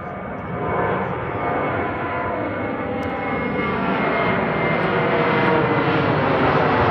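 Jet engines of a departing Spirit Airlines Airbus A320-family airliner, a steady rushing noise with a faint whine, growing gradually louder.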